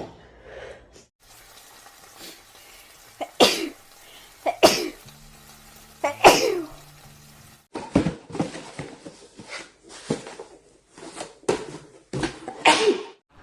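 A young woman's allergy sneezes, again and again: three loud single sneezes a second or two apart in the first half, then a quicker run of shorter sneezes in the second half.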